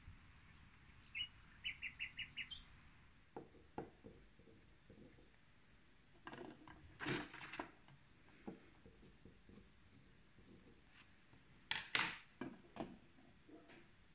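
A bird chirps a quick run of about six high notes near the start. Then eggs are handled and set into a clear bowl on a wooden table: faint knocks, clicks and rubbing, with louder clusters about seven and twelve seconds in.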